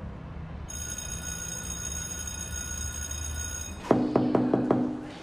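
Knuckles knocking on a door: a quick run of about half a dozen raps starting about four seconds in, over soft background music.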